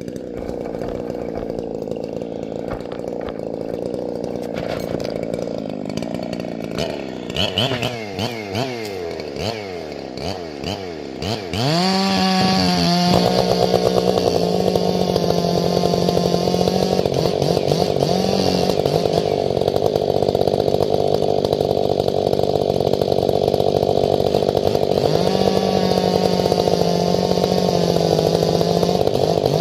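Stihl MS 500i chainsaw, a fuel-injected two-stroke on stock chain, running at low speed and then blipped several times. About twelve seconds in it goes to a loud, steady high-revving full throttle, held with a couple of brief dips, as the RPM is checked and the saw is put to work.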